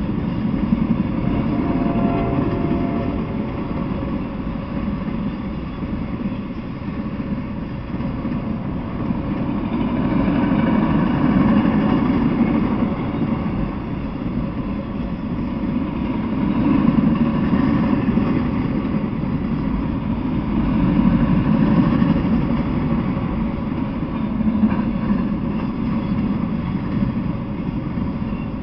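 Freight train of autorack cars rolling past: a steady rumble of steel wheels on the rails that swells and eases every few seconds.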